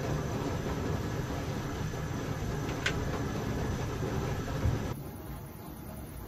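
Coleman Dual Fuel camp stove burner running steadily with a low rumble under a stainless steel percolator that is perking coffee. A short rising squeak comes about three seconds in. The sound drops to a fainter steady hiss about five seconds in.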